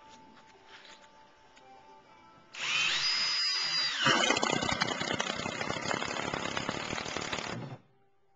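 Power drill driving a Cortex screw into a Trex composite deck board: the drill starts suddenly with a rising whine about two and a half seconds in, then grinds and rattles steadily as the screw bites and countersinks itself, and stops abruptly near the end. Faint background music runs underneath.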